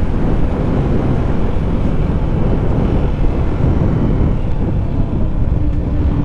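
Yamaha Sniper 155 motorcycle's single-cylinder engine running, heard with steady wind noise over the camera microphone. A faint steady tone comes in near the end.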